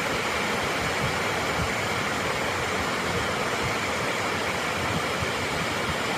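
Steady rushing roar of a large waterfall, falling water pouring down continuously.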